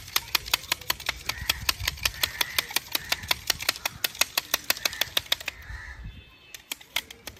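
A knife scraping and trimming a green bamboo pole as it is shaped into a fishing rod: quick, even strokes about six or seven a second that stop about five and a half seconds in, then a few scattered strokes.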